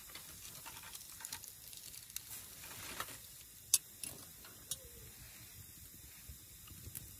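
Wood fire crackling and popping: a log burning over glowing embers, with a faint hiss and scattered sharp pops, the loudest about three and a half seconds in.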